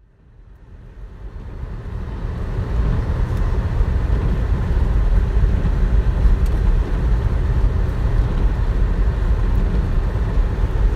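Car driving: a steady low rumble of road and engine noise that fades in over the first two seconds.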